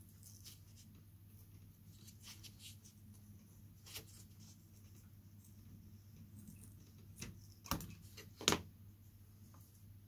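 Craft knife cutting through quarter-inch-square balsa strip on a plastic cutting mat: faint scratchy cuts, with a few sharp clicks, the loudest near the end.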